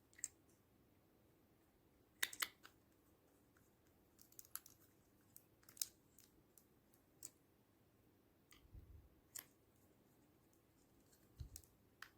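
Slime being pressed and worked by hand, giving scattered sharp clicks and small pops, with a close pair of louder clicks about two seconds in and a couple of soft low thuds later on.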